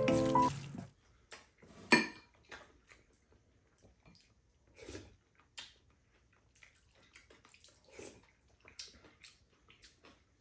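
Background music ending about a second in, then quiet eating sounds: spoons clinking and scraping against bowls, with one sharper ringing clink about two seconds in.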